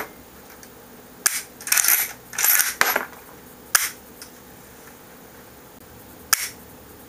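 Action of a 1977 Winchester Model 1894 lever-action carbine being worked at the shoulder. A sharp metallic click comes about a second in, then the lever is swung open and shut with two rattling metal clacks. Further single sharp clicks follow near four seconds and again near six and a half seconds in.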